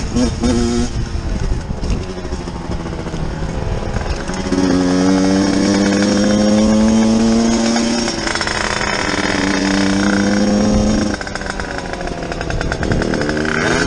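Motorcycle engine on the move: a few quick throttle blips at first, then the engine held at steady high revs for several seconds, its pitch creeping up. It eases off briefly and is held high once more before dropping back about eleven seconds in.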